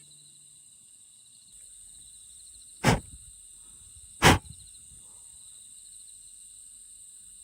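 Crickets and other insects chirping in a steady high pulsing trill, with two loud sharp knocks about a second and a half apart near the middle.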